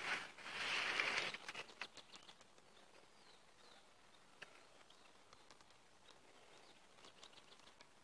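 Tall dry grass and leaves rustling close to the microphone for about a second near the start, then a few faint bird chirps and light crackles.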